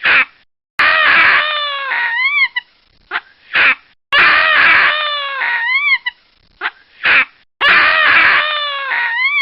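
A baboon's cries, repeated: a long wavering cry followed by two short yelps that rise and fall and a few brief calls. The sequence comes three times, about every three and a half seconds.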